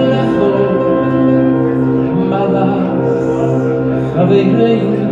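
Male choir singing long held harmonies, with electronic keyboard accompaniment, amplified through a PA.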